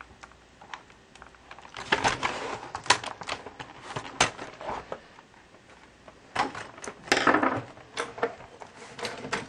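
Irregular plastic clicks, knocks and creaks from an Acer laptop's casing and keyboard being handled and pried apart, with longer crackling scrapes about two seconds in and again near seven seconds.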